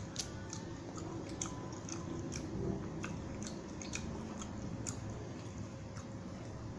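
Close-up chewing of soft beef rendang and rice, with irregular wet mouth clicks and smacks.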